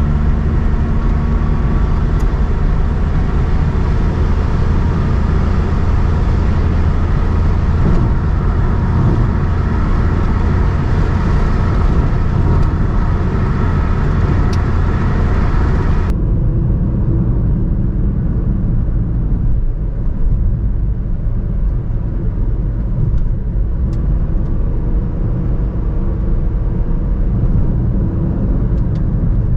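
Suzuki Alto VXR 2021's 660cc three-cylinder engine droning steadily at highway cruising speed of about 100 km/h, with tyre and road noise, heard from inside the cabin. About halfway through, the hiss drops away abruptly, leaving a duller rumble.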